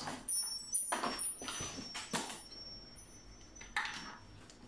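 A few short rustles and clicks, about one a second, from a ring light's plastic power adapter and cable being handled.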